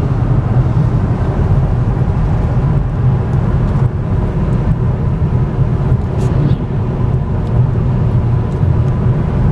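Steady road and tyre noise inside the cabin of a 2014 Cadillac ELR cruising at highway speed, a low even rumble.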